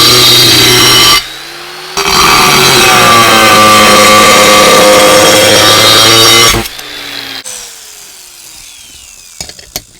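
Angle grinder cutting stone at full speed; its whine sags in pitch under load and recovers, with a brief drop in level about a second in. It is switched off about six and a half seconds in and spins down with a falling whine, followed by a few clicks.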